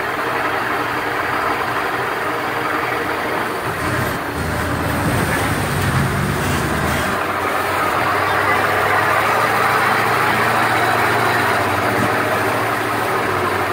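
Monster truck's engine running steadily as the truck drives along a dirt trail, with a broad rushing noise over the engine hum that grows a little louder in the second half.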